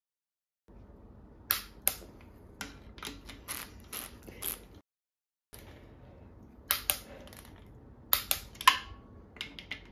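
Irregular sharp metallic clicks and clinks of a socket wrench working the nut on the crank sensor bracket of a VW Wasserboxer engine block, as the sensor is loosened and set for position. The clicks come in two spells, with a short silent break about halfway.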